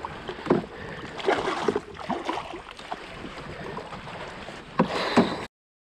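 Water splashing beside a boat as a big largemouth bass is brought to the landing net, with a few sharp knocks near the start and about five seconds in. The sound cuts out completely for a moment near the end.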